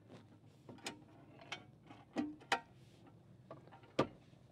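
A handful of light, irregular clicks and knocks from hands plugging USB cable connectors back in and handling the hard plastic parts of a car's centre console, the sharpest click about four seconds in.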